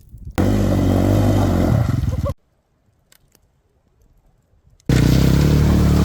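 Dirt bike engine revving hard in two short bursts, about two seconds each, each starting and stopping abruptly, with near quiet in between.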